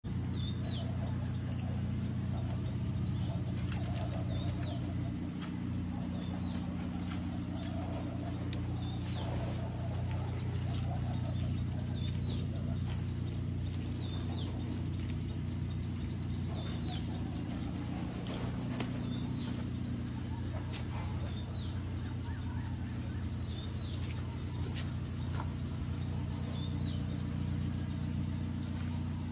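Ford 6610 tractor's three-cylinder diesel engine idling steadily. Short high chirps recur every few seconds over it.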